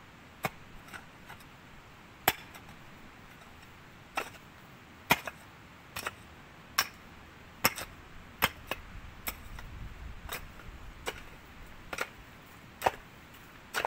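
Hand digging: a metal digging tool striking into the ground with sharp strikes, a few scattered at first, then settling into a steady rhythm of about one a second from about four seconds in.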